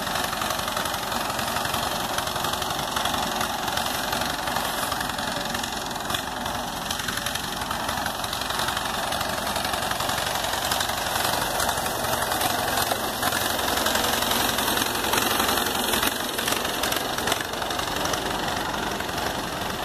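Farmall C tractor's four-cylinder gasoline engine running steadily as the tractor is driven along, a little louder midway. The engine has just had its governor spring fixed and valves adjusted, and one valve is still sticking.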